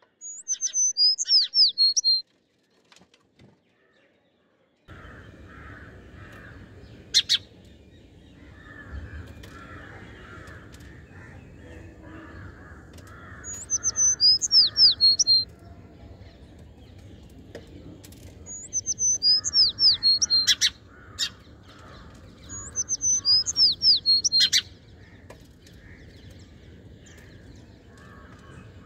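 Small songbird calling in four short bursts, each a quick run of high, down-slurred chirps lasting about two seconds. A single sharp click comes about seven seconds in. Behind them, from about five seconds in, is a faint steady background with distant cawing.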